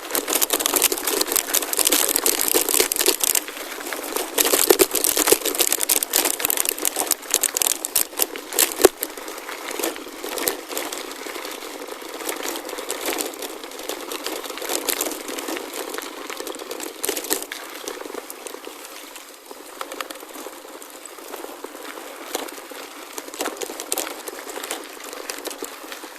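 Gravel-bike tyres rolling over a gravel forest road: a dense crackle of small crunches and rattles. It is heavier for the first ten seconds or so, then eases.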